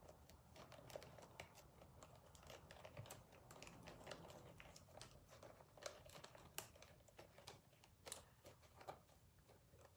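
Faint, scattered small clicks and light rustles from craft materials, stencil pieces and a shoe, being handled on a work table; otherwise near silence.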